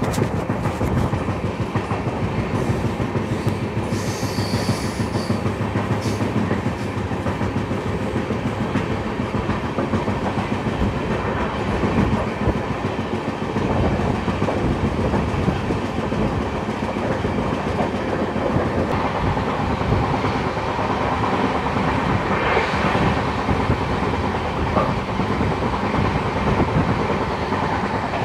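Indian Railways passenger express train running, heard from an open coach doorway: wheels clattering steadily over the rail joints under the rumble of the moving coaches.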